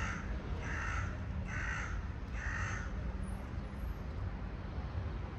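A crow cawing: four harsh caws in an even series, a little under a second apart, stopping about three seconds in, over a steady low background rumble.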